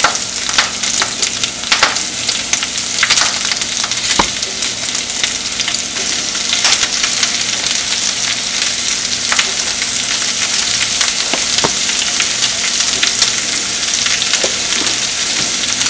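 Swiss chard leaves frying in hot coconut oil in a nonstick pan: a steady high sizzle with scattered crackles and pops as the leaves wilt down.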